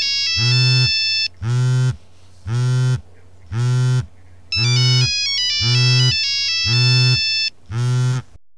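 Drilled-through Nokia 3310 ringing, still working: a high beeping ringtone melody stops about a second in and plays again from about halfway, over the vibration alert buzzing in short pulses about once a second.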